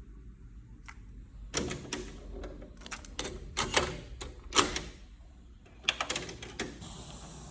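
Irregular run of sharp mechanical clicks and clatters, bunched between about one and a half and seven seconds in, from handling the controls and mechanisms of a Sony LBT-XB800AV stereo system, over a low hum.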